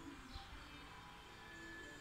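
Faint background music, a few quiet held notes.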